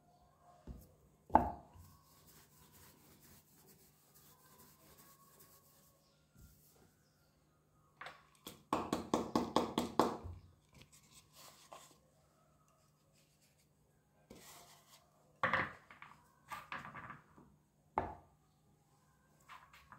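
Hands slapping and patting a lump of damp multani mitti (fuller's earth) clay against a board while shaping it into a bar: scattered single thumps, and a quick run of about a dozen pats in under two seconds near the middle.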